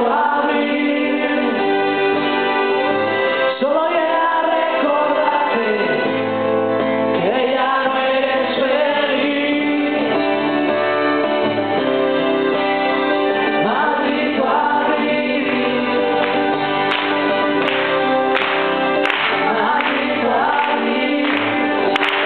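Live rock band playing a song with singing over sustained chords; sharp drum hits come in about two-thirds of the way through.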